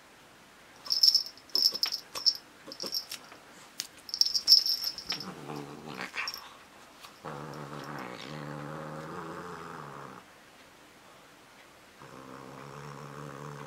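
A small bell on a cat's collar jingles in a quick run of shakes as the cat leaps and bats at a toy. Then the cat growls low and steadily over the toy it holds in its mouth, in three long stretches.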